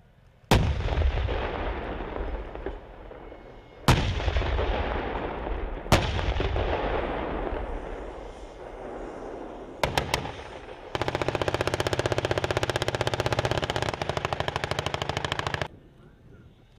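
Three blasts from an M1 Abrams tank's 120 mm main gun, a few seconds apart, each trailing off in a long rumbling echo. These are followed by a quick three-round burst and then a sustained machine-gun burst of about five seconds.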